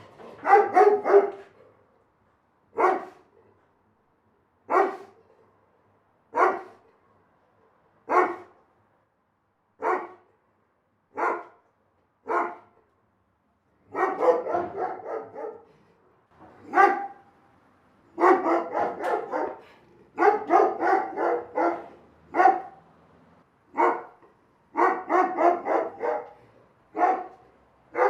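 A big dog barking: single barks every couple of seconds at first, then from about halfway through, bursts of several quick barks in a row with single barks in between.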